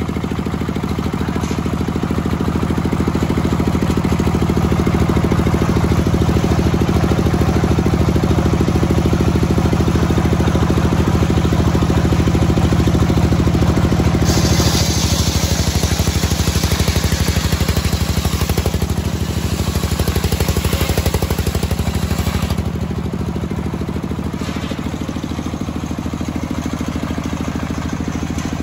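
A homemade table circular saw driven by a stationary engine runs steadily. About halfway through, the blade cuts through teak for around eight seconds, adding a loud high hiss, and the engine note drops slightly under the load. The hiss then stops and the engine runs on.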